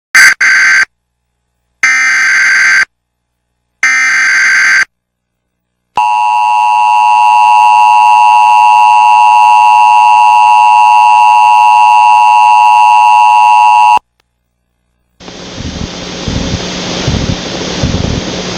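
Emergency Alert System tornado warning: three short screeching data bursts of the SAME header, then the steady two-tone EAS attention signal for about eight seconds, which cuts off abruptly. After a second of silence, a steady hiss with a low hum begins, leading into the voice message.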